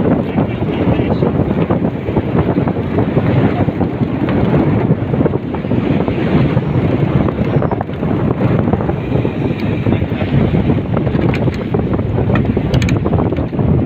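Wind buffeting the microphone: a loud, steady, dense rush with no let-up.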